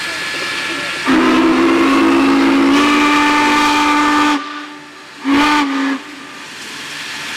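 Union Pacific 3985 Challenger steam locomotive's whistle sounding a low chord: one long blast of about three seconds starting about a second in, then a short blast about a second after it. A steady hiss runs underneath.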